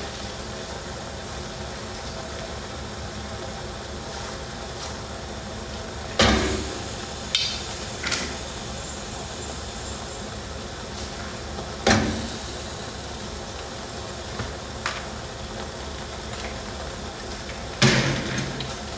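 Cookware clanking over a steady background hiss: three loud sharp knocks about six seconds apart, with a couple of lighter ones just after the first.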